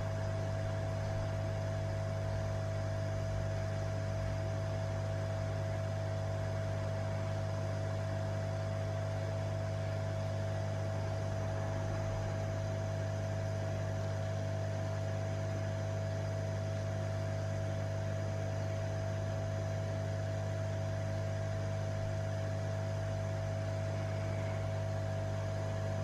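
Hot air rework station blowing steadily on a circuit board: an even hum with a constant tone above it. This is the reflow stage, as the solder paste under the surface-mount resistors melts and flows.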